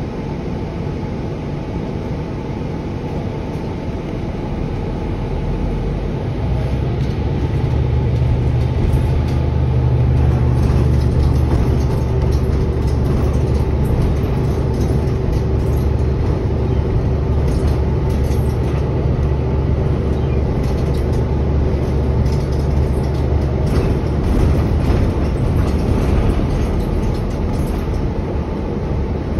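A New Flyer XDE40 diesel-electric hybrid bus, heard from inside the cabin: a steady low drone of the engine and drivetrain with road noise. About six seconds in the drone grows louder and stays up as the bus picks up speed.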